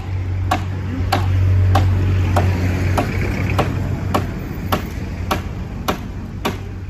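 Hammer blows on the wooden formwork boards, a steady rhythm of sharp strikes about one every 0.6 seconds. Under them a low engine hum swells and fades in the first half, a passing vehicle.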